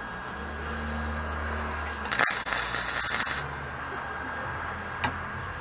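MIG welder in use: a low steady hum for about two seconds, then a click and a short hissing crackle of about a second from the welding torch.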